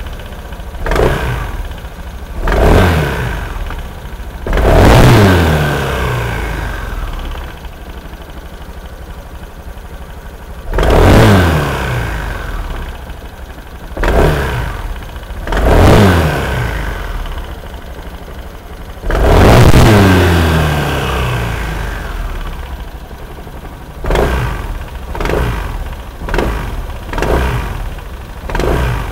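Modified vehicle engine revved repeatedly with no load: sharp throttle blips, each followed by the revs falling back toward idle, with a run of shorter, quicker blips near the end. It is run this way to bring out an abnormal noise at idle.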